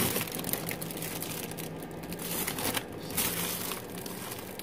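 Clear plastic wrapping crinkling and crackling in irregular bursts as a plastic-wrapped mask is handled.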